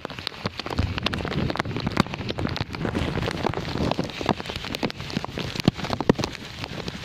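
Heavy rain pouring steadily, with raindrops striking close to the microphone as many sharp, irregular taps.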